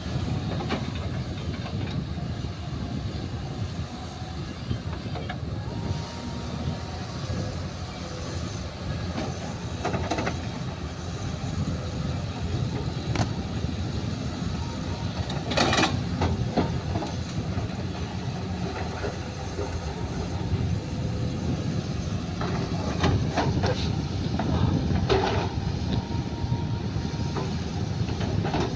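Heavy equipment running with a steady low rumble, with a few sharp metallic clanks and scrapes now and then, the loudest about halfway through.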